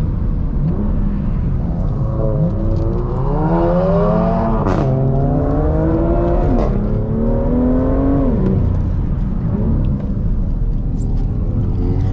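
BMW M2's 370 hp six-cylinder with a performance exhaust, accelerating hard. The pitch climbs, drops at two upshifts about 5 and 7 seconds in with a sharp crack at each shift, climbs again, then falls as the driver lifts off.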